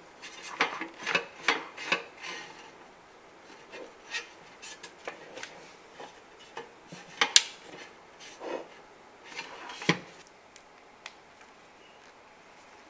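Cords and plug adapters being handled in a cable management box, cables rubbing and sliding, with scattered light knocks and clicks. The sharpest click comes about seven seconds in, and another near ten seconds.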